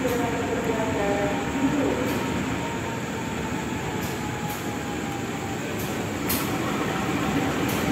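CC 203 diesel-electric locomotive moving slowly alongside the platform under its own power: a steady engine drone with a few held tones that ease off after a couple of seconds, and several sharp clicks scattered throughout.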